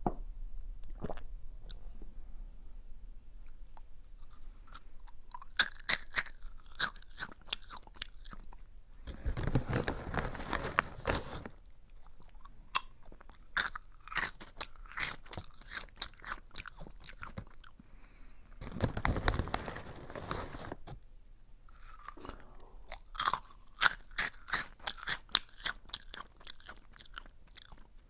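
Close-miked chewing of a crunchy curry-flavoured snack: runs of sharp crunches, with two longer stretches of denser, continuous crunching noise about ten and twenty seconds in.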